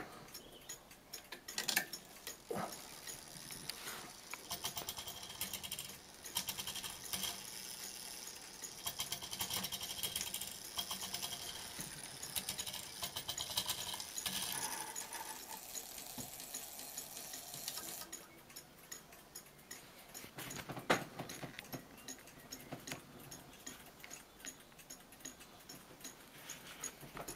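Triple fusee bracket clock movement running its chime train: the pinned chime barrel turns, and the gearing whirs and clicks rapidly while hammers lift and strike the bells. The clatter eases off about two-thirds of the way through, with one louder knock shortly after.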